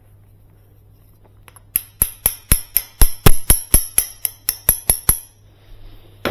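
A steel swaging tool struck repeatedly to flare open the end of thin 3/16-inch copper refrigeration tubing. About fifteen sharp, ringing metallic taps come at about four a second, starting about two seconds in and stopping a second before the end.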